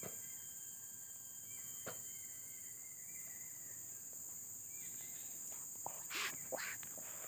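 Steady, high-pitched chorus of insects, crickets or similar, in the waterside vegetation. A few brief, louder sounds break in about six seconds in.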